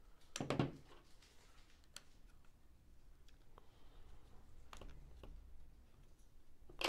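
A few faint clicks and taps, scattered and irregular, as fingers work the small parts of an IWI X95 rifle's receiver, lifting its barrel locking catch.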